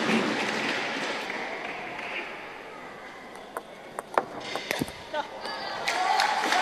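Arena crowd noise dies down, then a short table tennis rally: a quick string of sharp clicks as the celluloid ball is struck by the rackets and bounces on the table, about six hits in under two seconds. Crowd noise swells again near the end as the point is won.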